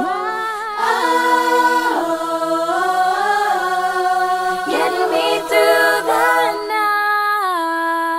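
Recorded women's a cappella group singing in close harmony, several voices moving together in chords with a low sung drone under them, settling into a long held final chord near the end.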